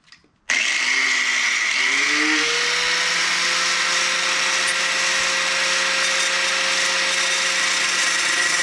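A grinder fitted with a cutting disc starting abruptly about half a second in, its pitch rising for a couple of seconds as it spins up, then running steadily while cutting metal.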